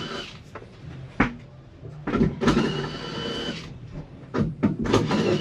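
Air hissing from a car tyre's valve in short bursts of about a second each, with a thin whistle, as the tyre pressures are checked and set.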